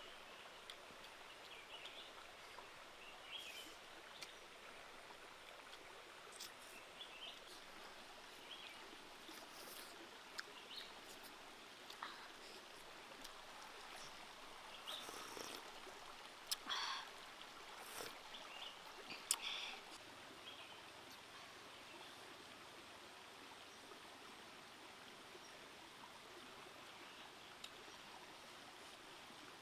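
Faint, steady rush of a shallow rocky stream. Around the middle come a cluster of short soft clicks and smacks, the sounds of someone eating soup with a spoon.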